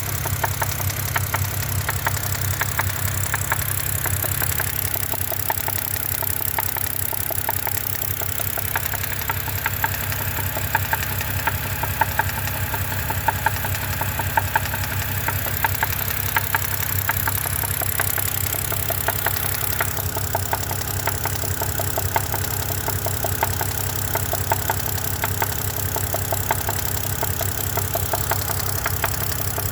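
BMW N52 3.0-litre straight-six idling steadily with a fast, even knock running through it, which the owner suspects may be rod knock.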